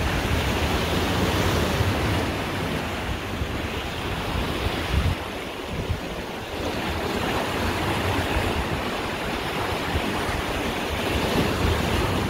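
Open-sea waves rushing, with wind buffeting the microphone in an uneven low rumble.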